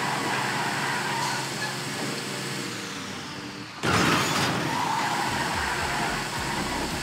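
A motor vehicle's engine running under a rush of tyre and track noise. About four seconds in, the sound jumps suddenly to a louder rush.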